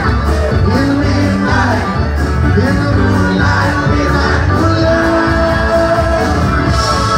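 A live rock band playing loudly, heard from within the crowd, with electric guitar and keyboards over drums and regular cymbal hits.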